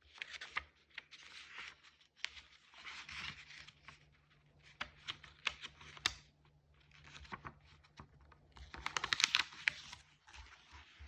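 Cards being handled and shuffled: scattered light clicks and rustles, with a quick run of rapid card clicks about nine seconds in.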